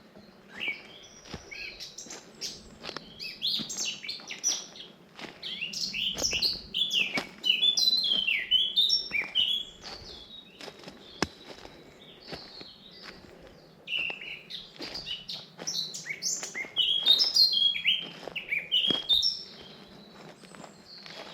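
Several songbirds singing and chirping at once, quick high twittering notes and trills overlapping in two busy bouts with a quieter lull in the middle.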